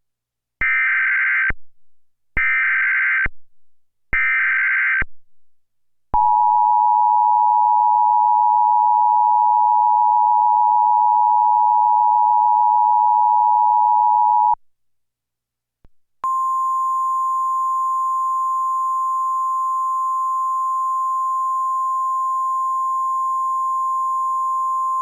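Synthesized Emergency Alert System tones: three one-second bursts of SAME digital header data, then the two-tone EAS attention signal held steady for about eight seconds. After a gap of about a second comes a single steady tone.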